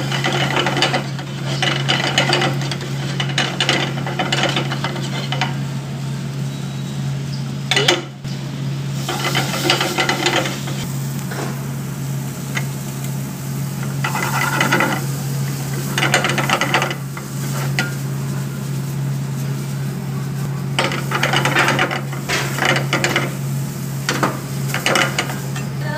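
A steel ladle stirring and scraping peas, tomato and grated paneer around a black frying pan as they fry, in repeated bursts of scraping and clatter. A steady low hum runs underneath.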